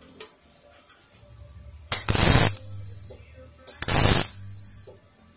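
Wire-feed welder's arc crackling in two short bursts of about half a second each: tack welds stitching a steel patch panel onto a rusted sheet-steel scooter body.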